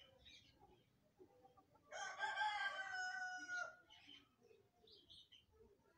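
A rooster crowing once: a single long call starting about two seconds in, lasting under two seconds and falling off at the end.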